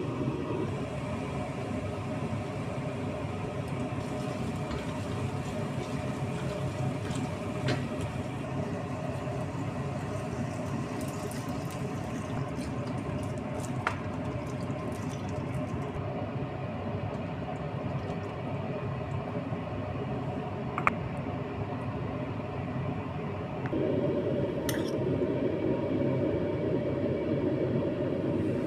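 Steady wet cooking sounds of a sauce or pasta in a pan, simmering and squishing, louder from about 24 s in. There is one sharp click about 21 s in.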